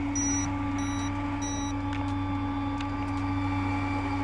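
Electric fishing reel's motor whining steadily as it winds line in against a fish that is pulling drag, with a few short high electronic beeps from the reel in the first two seconds.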